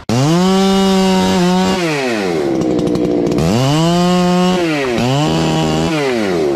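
Two-stroke chainsaw engine revved to full throttle and let back down, three times over, with two quick dips in speed in the middle.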